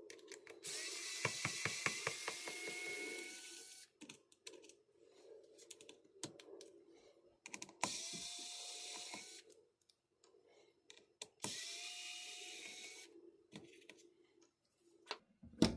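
Electric precision screwdriver running in three short bursts, the first about three seconds and the others shorter, as it backs out small screws from a laptop's insides. Light clicks between the bursts.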